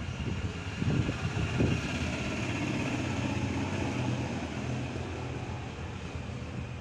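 Steady low hum of a distant engine, with a few low bumps in the first two seconds.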